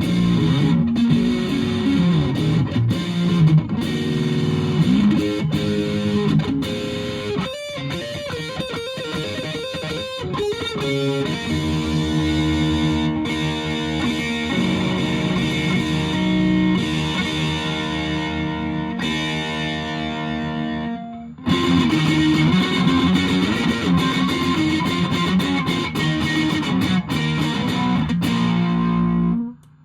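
Electric guitar (Fender Japan Jazzmaster) played through a 1985 Japanese-made Boss DS-1 distortion pedal into an ELK FSB-45 amp, picked up by a phone's microphone. It plays distorted riffs, then lets chords ring for several seconds around the middle, then riffs again and stops abruptly near the end.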